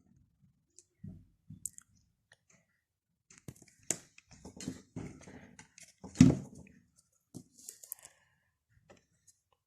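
Scattered clicks and knocks of small parts being handled, with one louder knock about six seconds in.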